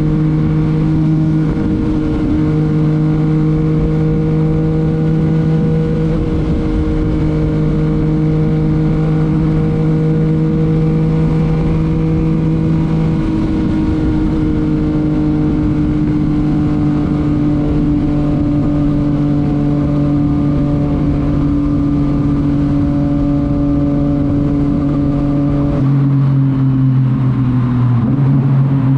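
Yamaha MT-09's three-cylinder engine through a titanium Akrapovic exhaust, running at steady cruising revs while riding, its pitch sinking slowly. About three seconds before the end the pitch drops a step, as with a gear change or throttle change, over a constant low rush.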